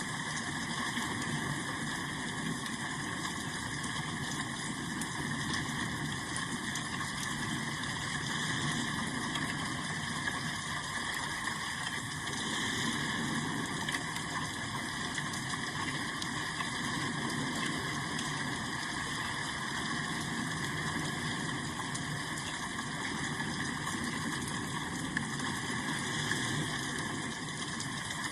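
Steady rain falling, an even unbroken hiss with no distinct drops or thunder.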